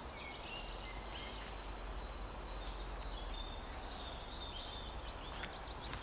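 Forest ambience: steady outdoor background noise with faint birdsong, thin high chirps and whistles. Near the end come a few light cracks and rustles of footsteps in the undergrowth.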